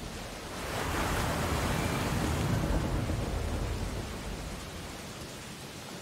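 Sea wave breaking: a rush of surf swells about a second in and dies away by about four seconds, over steady sea noise.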